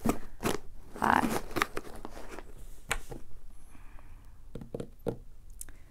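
Tissue paper and plastic packaging in a gift box rustling and crinkling as it is handled, with scattered short taps and clicks.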